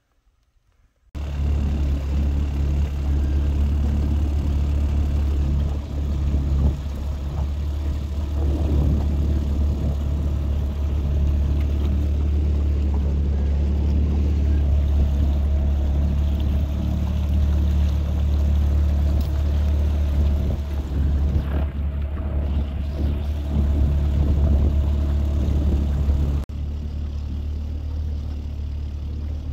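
Outboard motor on a small aluminium fishing boat running steadily under way: a steady low drone that starts abruptly about a second in and drops a little in level near the end.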